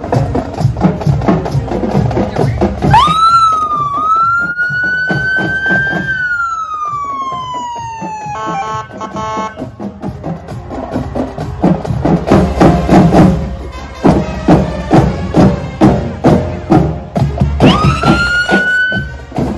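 Marching band drumline playing a cadence on snare and bass drums throughout, with the leading police car's electronic siren giving a rising wail that falls away at about three to eight seconds, a brief buzzy horn tone just after, and another rising whoop near the end.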